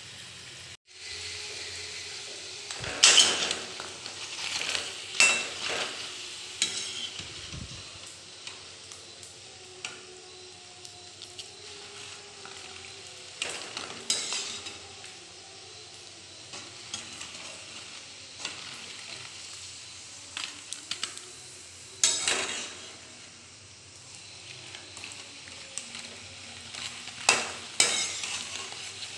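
Egg-coated papad frying in hot oil in a metal kadai, a steady sizzle. A metal spoon scrapes and clatters against the pan in several bursts as the pieces are turned.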